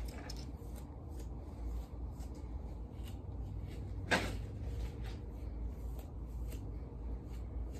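Quiet rustling from brushing and handling hair with a hairbrush, with one louder short scrape about four seconds in, over a low steady hum.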